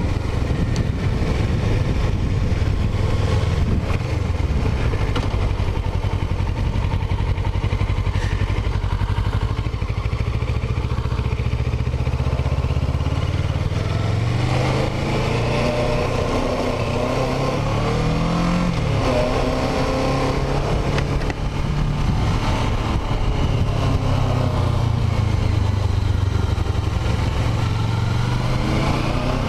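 Kawasaki Ninja 650R parallel-twin engine running under way, with wind noise. At first it holds a steady pitch; about halfway through the revs rise and fall several times as the bike accelerates and shifts.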